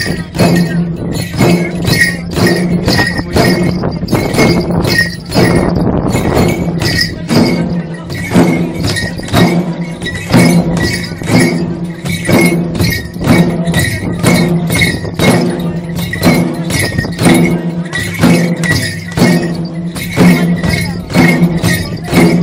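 Several chyabrung, the Limbu two-headed barrel drums, beaten together for the Kelang dance in a steady rhythm of about two strokes a second.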